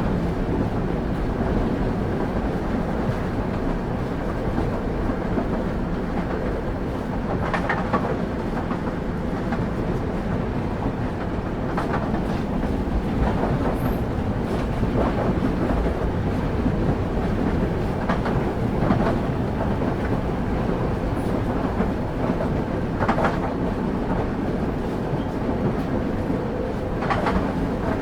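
Railway carriage rolling along at speed, heard on board: a steady low rumble from the wheels on the track, broken every few seconds by sharp clacks of the wheels crossing rail joints, some in quick pairs.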